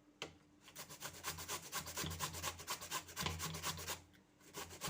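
Raw turnip being grated on a hand grater: quick, even rasping strokes, many a second, with a brief pause about four seconds in.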